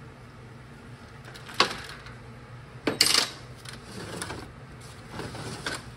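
Metal parts clinking as the parking rod assembly is taken out of a Toyota AB60E automatic transmission case: a sharp clink about a second and a half in, a louder clatter of metal on metal around three seconds in, then a few lighter taps.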